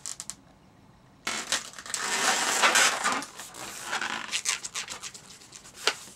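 Latex twisting balloon rubbing and creaking under the fingers as air is squeezed up into its tip to form a small bubble. The rubbing starts about a second in, and there is a sharp tick near the end.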